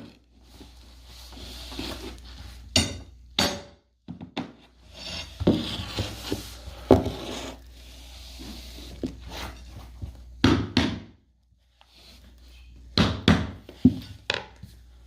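Hammer knocks on laminate flooring planks, in short groups of sharp taps with scraping between them, as the plank joints are knocked closed to shut the gap.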